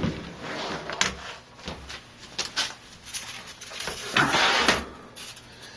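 A removed side panel of a Corsair Obsidian 750D PC case being handled: several light knocks and clacks, then a louder sliding scrape about four seconds in.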